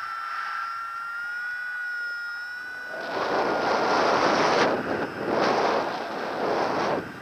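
Airflow buffeting the microphone of a paraglider pilot's camera in flight, coming in pulsing gusts from about three seconds in. Before that a steady high electronic tone sounds, its pitch rising slightly, and it fades out about four seconds in.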